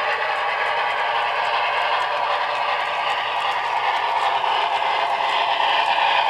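Model Milwaukee F7 4-6-4 locomotive and passenger cars running on layout track: a steady whir of motor and gears with light clatter of wheels over the rails, growing a little louder near the end as the train comes onto the trestle.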